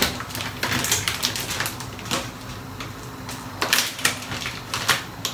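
Plastic noodle packaging crinkling and rustling as it is handled and packs are pulled out of the bag, in an irregular string of sharp crackles.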